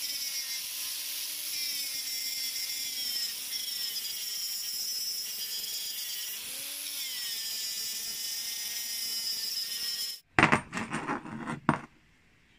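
Angle grinder grinding a steel hammer head, its motor whine dipping and recovering as it is pressed into the metal. It stops about ten seconds in, followed by a short, much louder rough burst lasting about a second and a half.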